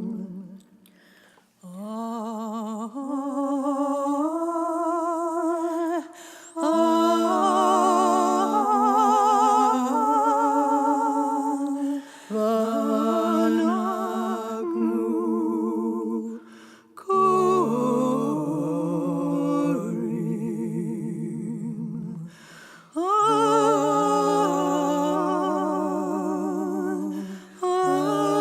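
A solo voice singing a slow, ornamented Jewish liturgical melody with wide vibrato, largely without clear words. It comes in long held phrases broken by short pauses about every five seconds.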